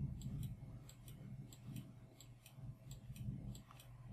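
Faint, evenly spaced clicks, about three a second, over a low steady hum.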